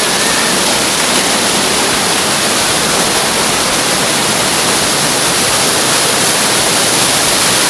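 Waterfall pouring close by: a loud, steady rush of falling water.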